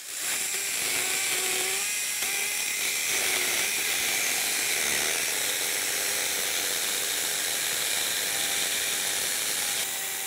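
Battery-powered one-handed pruning chainsaw, run from a backpack battery, cutting lengthwise through an old grapevine trunk. It runs steadily under load with a high whine, and its pitch wavers during the first few seconds.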